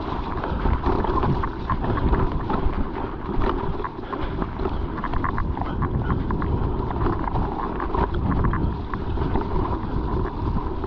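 Mountain bike rattling and clattering over rough, rocky trail at speed, with a constant run of sharp knocks, low rumble and wind buffeting the microphone.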